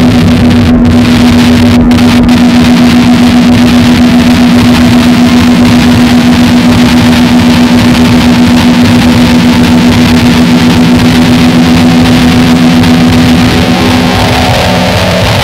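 Harsh noise wall: dense, very loud distorted synth noise with a steady low hum held underneath. About fourteen seconds in, the hum drops out and the texture shifts.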